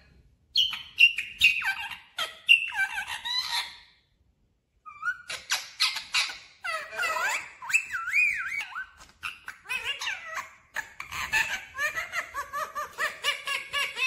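Rose-ringed (Indian ringneck) parakeet chattering in a quick run of short squeaky, warbling calls that swoop up and down in pitch, pausing briefly about four seconds in.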